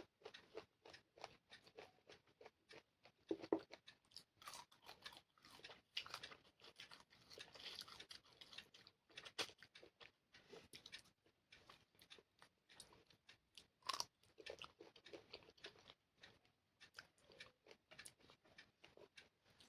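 Close-up chewing and biting of chicken curry with rice: many small irregular mouth clicks and smacks, with a couple of louder bites.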